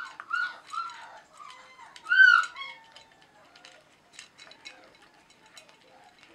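Four-week-old German Shorthaired Pointer puppy whining in a quick series of short high calls, the loudest about two seconds in. After that come faint clicks of kibble being eaten from a steel bowl.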